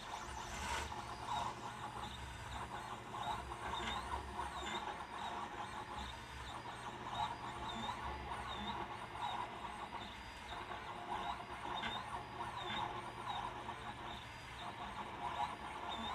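Monoprice IIIP 3D printer running a print: its stepper motors whine in tones that glide up and down as the head changes speed and direction, over a steady low hum.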